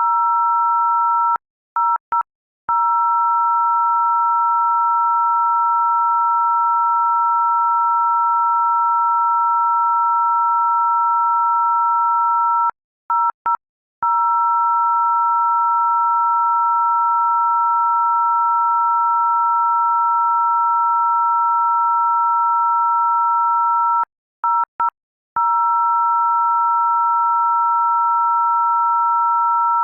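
A loud, steady electronic tone of two pure pitches sounding together, like a telephone dial tone. It stutters off and on briefly three times, about every eleven seconds.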